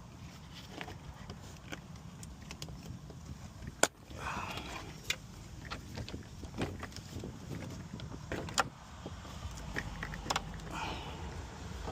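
Plastic interior pillar trim being pried and tugged loose: scattered sharp clicks and taps, with a short creak about four seconds in and another near the end, over a low steady hum.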